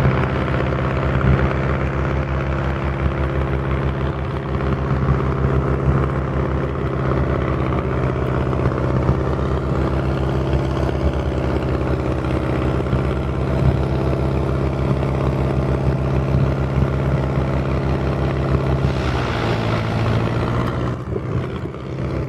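A nearby engine running steadily with an even pulsing beat. It drops slightly in pitch about 19 seconds in and then fades near the end.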